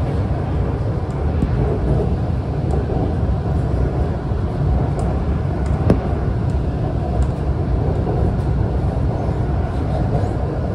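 A train running at speed, heard from inside the carriage: a steady low rumble, with a single sharp click about six seconds in.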